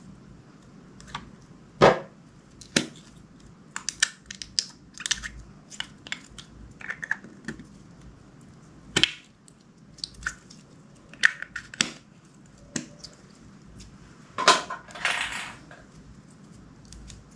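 Clear slime being worked by hand, making irregular sticky clicks, pops and squelches, with a longer squelch near the end.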